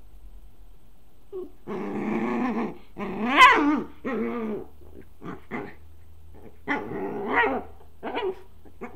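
Small white fluffy dog growling and grumbling in several bouts, loudest about three and a half seconds in, with short yips between. She is mad at being locked out of a room.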